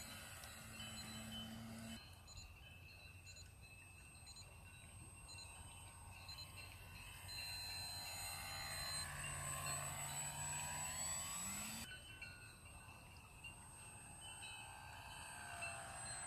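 Electric motor and propeller of a Multiplex PC-6 Pilatus Porter RC model plane whining faintly in flight, the pitch sliding up and down as it passes. The sound changes abruptly about two seconds in and again near the twelve-second mark.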